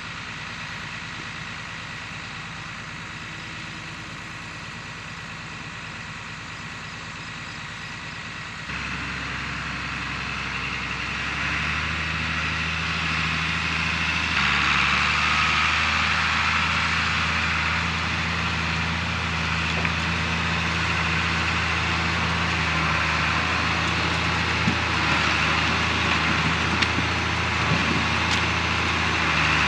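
Farm tractor's engine running as it drives up carrying a front-end loader bucket full of firewood rounds, growing louder as it nears. The engine note steps up about nine seconds in and again a few seconds later, then holds steady, with a few light knocks near the end.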